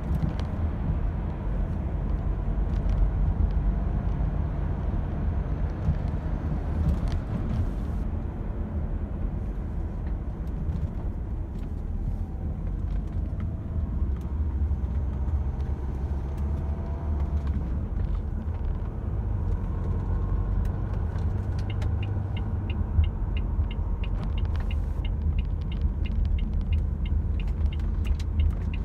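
Renault Espace IV engine running cold, heard from inside the cabin as a steady low rumble. A regular light ticking, about three a second, joins in near the end.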